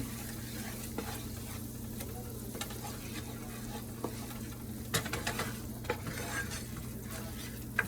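Skillet gravy made with egg pan drippings sizzling in a frying pan as it is stirred, with a few light clicks of the spoon against the pan over a steady low hum.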